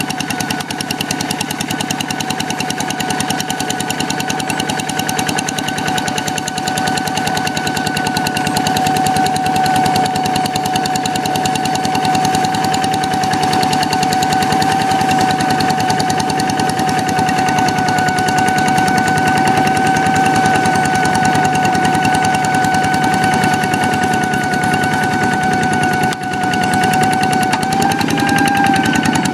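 Single-cylinder Kubota diesel engine of a hand tractor running under work with rapid, even exhaust knocks. A steady high whine sits over it, the 'ngiung ngiung' the engine is known for, and wavers slightly near the end.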